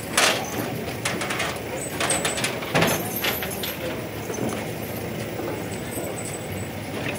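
Crowd chatter with a few sharp knocks and clatters, near the start and again about two and three seconds in, as an elephant climbs up onto a truck's loading bed.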